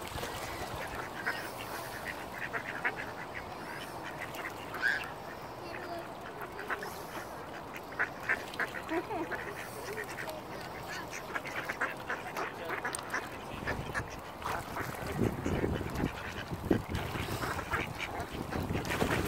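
Mallard ducks quacking, many short calls scattered throughout. A low rumble builds over the last few seconds.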